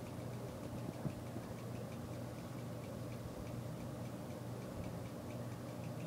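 A xenon strobe light clicking with each flash in an even, rapid tick, over a steady low hum.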